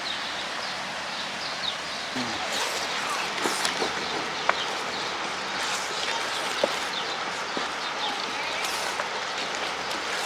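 Birds chirping in short, scattered calls over a steady hiss, with faint voices in the background.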